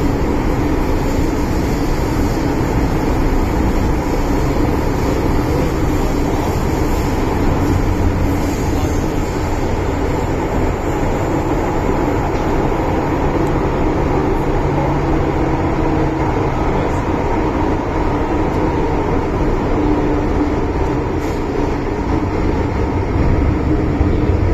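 MTR Island Line M-Train heard from inside the passenger car while it runs through a tunnel: a steady rumble of wheels on rail, with a faint hum running underneath.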